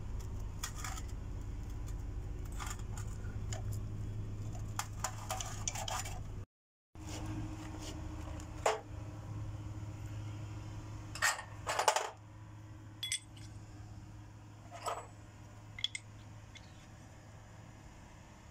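Steel differential gears and parts clinking and knocking together as they are handled and seated into a roller's differential case, with a few louder metal clinks in the second half and a steady low hum underneath. The sound cuts out completely for about half a second around a third of the way in.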